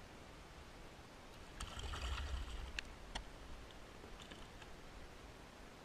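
Small bluefish being landed beside a kayak: a burst of splashing and handling noise about one and a half seconds in, followed by a few sharp clicks and knocks.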